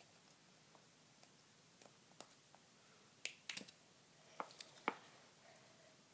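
Faint, scattered small clicks and taps of hard plastic being pried by hand: the release tabs of an OEM Lexus HID ballast's black plastic socket cover being worked loose, with the sharpest clicks about three and a half and five seconds in.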